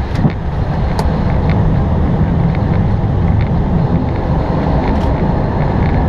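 Steady rush and low rumble of airflow and engines heard inside an Airbus A320 cockpit in descent, with a couple of faint clicks.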